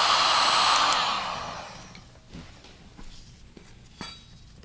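Heat gun blowing steadily, heating a transmission bearing's inner ring, then shut off with its fan winding down over about a second. A few light clicks and taps of handling follow.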